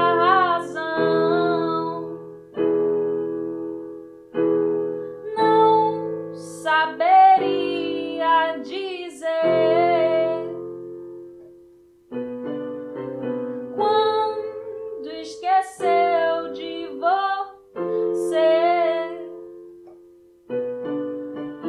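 A woman singing in Portuguese over piano chords, each chord struck and left to ring.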